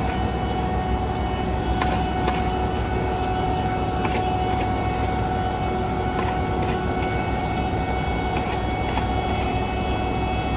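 Heavy road-paving machinery running steadily: a low engine rumble with a constant whine over it and a few faint clicks and knocks.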